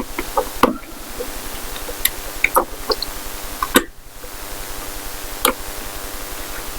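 Small metal lock parts clicking and tapping as they are handled and fitted together, about seven sharp clicks spread out irregularly over a steady background hum.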